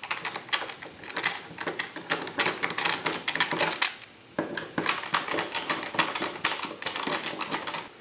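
Screwdriver backing out the mounting screws of a wall outlet from its metal box: a run of quick, irregular clicks and scrapes, which stops briefly a little after four seconds in and then goes on.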